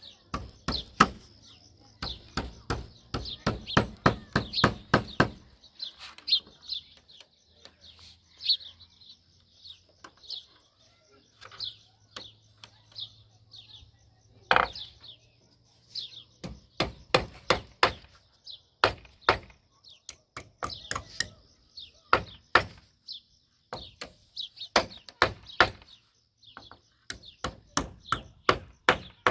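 Hammer knocking on weathered wooden planks in quick runs of blows with pauses between, one harder blow about halfway through. Birds chirp throughout.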